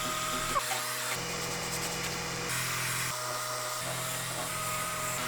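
3D printer's stepper motors whining, the pitch jumping to a new note every second or so as the print moves change.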